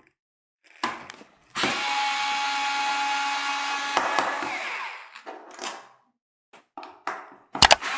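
Small electric screwdriver motor whirring steadily for about three seconds as it backs out a laptop's bottom-panel screw, winding down at the end. A brief spin comes just before, and a few sharp clicks sound near the end.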